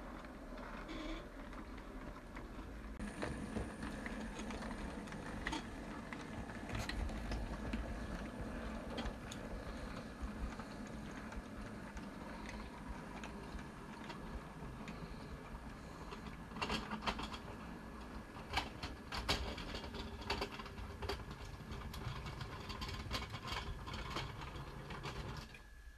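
OO gauge Bachmann GWR 57XX pannier tank model locomotive and its container wagons running along the track, with a steady mechanical whirr and scattered sharp clicks from wheels on rail. The clicks come thickest a little past the middle.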